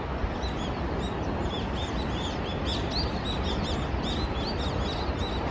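A large flock of brown-eared bulbuls calling in flight: many short, high chirps, several a second, over a steady background noise.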